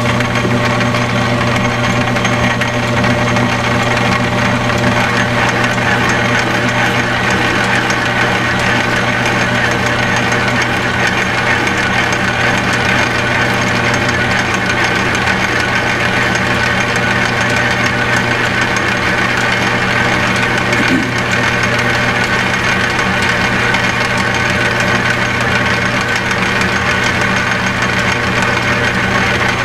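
Metal lathe running steadily in back gear, taking a light cut on a part held on a faceplate: a constant low hum with a higher whine over it.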